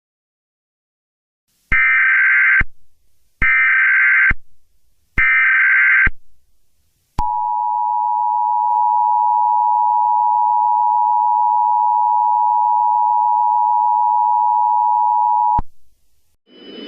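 Emergency Alert System tones: three short bursts of warbling digital data tones (the SAME header), each just under a second long, then the two-tone attention signal, a steady dual tone held for about eight seconds before it cuts off.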